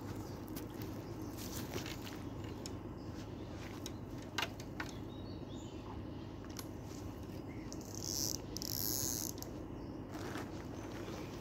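Quiet lakeside background: a steady low hum, a few faint clicks about four and a half seconds in, and a brief high hiss about eight seconds in.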